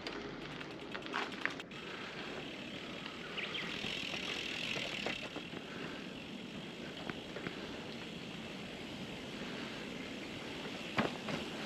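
Randonneur touring bicycle riding along the road: steady tyre and wind noise with a few light clicks and rattles from the bike.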